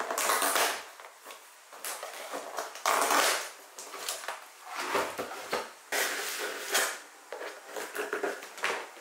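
Cardboard box being unpacked by hand: plastic strapping bands snipped and pulled free, then packing tape slit with a box cutter near the end, heard as a series of short scraping, rustling bursts.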